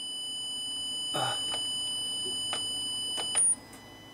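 Small test speaker driven by a USB oscilloscope's signal generator, sounding a steady high-pitched electronic tone with overtones, with a thump and a few clicks over it. About three and a half seconds in it jumps to a brief, sharper, higher squeal, then drops to a much fainter tone.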